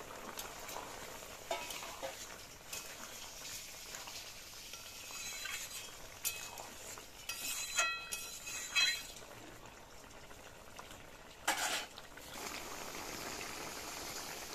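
Long metal spatula scraping and clinking against a kadai as fried lentil fritters are stirred into a simmering vegetable curry, with two ringing metal strikes about eight and nine seconds in and a short louder noise near twelve seconds. The curry then bubbles steadily on the wood fire.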